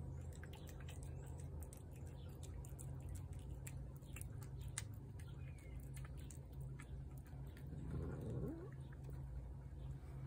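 A cat eating from a plate, with many small wet chewing clicks. About eight seconds in, a cat gives a short low vocalization that falls in pitch.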